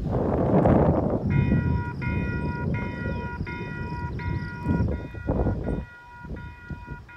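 Railroad crossing warning bell starting to ring about a second in, a steady clanging of about one and a half strokes a second: the crossing signals have just activated for an approaching train. Wind buffets the microphone, loudest at the start.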